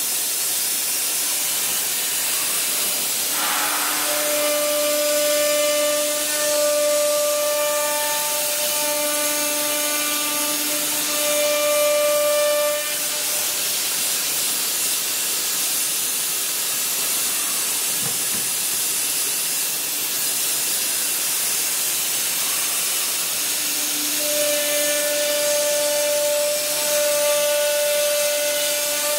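BCM2030S four-spindle CNC router running its spindles and routing a wood sheet: a steady high hiss with cutting noise throughout. A steady pitched hum comes in about four seconds in, stops after about nine seconds, and returns in the last five seconds.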